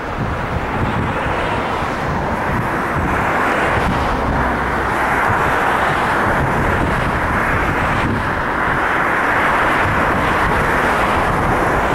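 Wind buffeting the camera microphone: a steady rushing noise with uneven low rumbling underneath.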